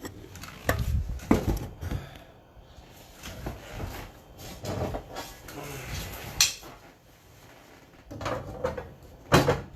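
Scattered clicks and knocks of parts and tools being handled and set down on a workbench, the sharpest about a second in, about two thirds of the way through and just before the end.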